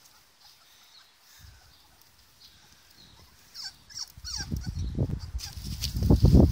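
Young puppies, 24 days old, whimpering and squeaking in short high glides, starting about halfway through after a quiet stretch. A loud low rumble comes in over them near the end and is the loudest sound.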